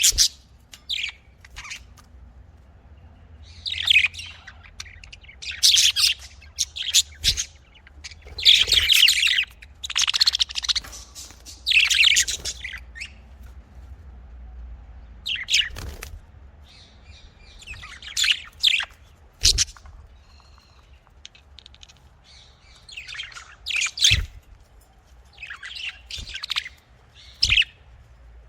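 Pet budgerigars (budgies) chirping and chattering in irregular bursts of short, high chirps, with a few quieter gaps between bursts.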